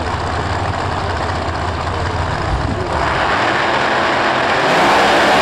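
Two no-prep drag race cars at the starting line with their engines running at a steady low rumble, then brought up to high revs about three seconds in and louder again near the end as they launch.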